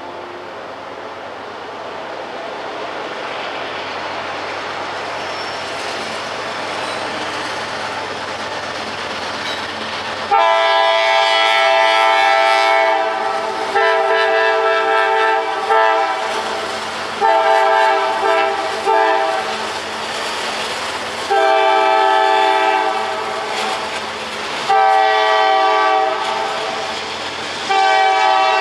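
A CSX diesel freight locomotive approaches, its rumble growing for about ten seconds. The locomotive's air horn then sounds a string of loud blasts, long and short, with the train rolling past between them.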